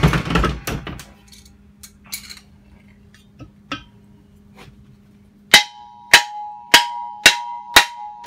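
Hammer blows on the metal shaft of an LG top-load washer clutch assembly, about two a second from around five and a half seconds in, each leaving a short metallic ring, as the pressed-in shaft is knocked out of the gearcase. Before them, a loud clatter as the heavy metal assembly is picked up and set down on the bench, then a few light clinks.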